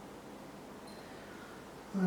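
Quiet, steady background hiss of a small room, with one faint tick about a second in.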